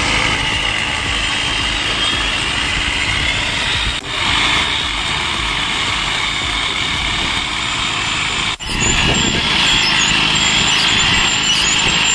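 Rail grinder running and grinding down the excess weld metal at a rail weld joint so the rail head is level and smooth across the joint; a steady, loud grinding noise that breaks off briefly about four and eight and a half seconds in.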